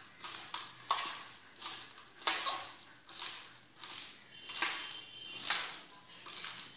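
Hands squeezing and kneading chopped banana plant with salt in a bowl: repeated wet rustling squishes about once a second, with faint clinks against the bowl.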